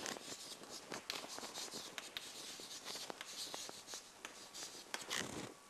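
Chalk writing on a blackboard: a rapid, irregular run of taps and short scratchy strokes.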